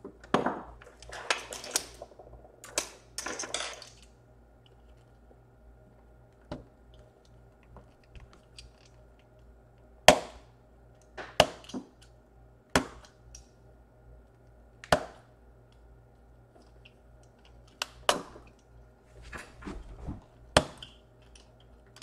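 Irregular sharp clicks and taps of small hand tools working against a laptop's case at the power-jack corner, about a dozen in all, the loudest about ten seconds in, with a denser run of scraping and handling in the first few seconds over a faint steady hum.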